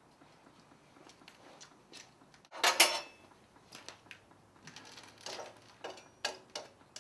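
Metal clanking and clinking of an iron glass press mold and tools being handled. The loudest clatter comes about two and a half seconds in, followed by scattered lighter clinks and knocks.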